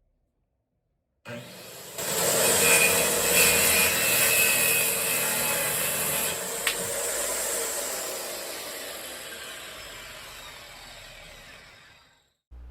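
Circular saw fitted with a Diablo framing blade starting up and cutting through a clamped board, then a sharp knock about halfway through, after which the blade winds down slowly over about five seconds.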